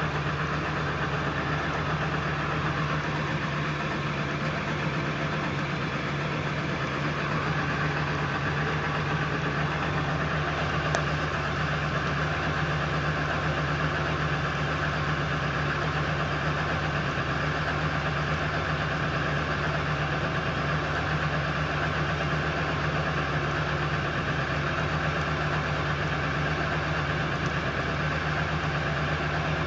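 1999 Ford F-350's 7.3-litre Power Stroke V8 turbodiesel idling steadily. This is the rough, shaky idle the owner gets after a cold start, with no check-engine light and the cause not yet known.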